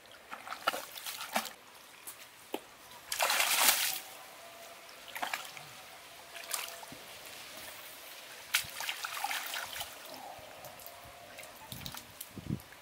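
Shallow muddy water splashing and sloshing irregularly as a person wades and gropes through it by hand, with the loudest splash about three seconds in. A few dull thumps come near the end.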